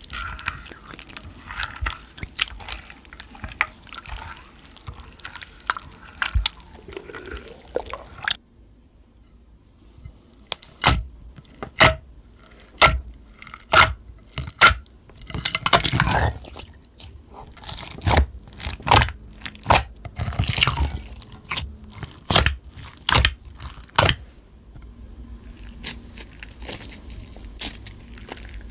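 Slime being squished and pressed by hand, giving irregular sticky pops and clicks. The sound breaks off suddenly about eight seconds in, and the pops that follow are sparser and louder.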